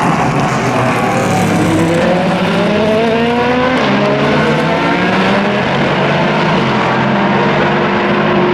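Endurance race cars accelerating hard through the gears. Engine pitch climbs and drops back at each upshift, with more than one car's engine heard at once.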